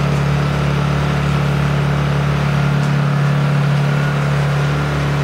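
Honda EU2000 inverter generator's small single-cylinder four-stroke engine running steadily at full throttle, a constant hum.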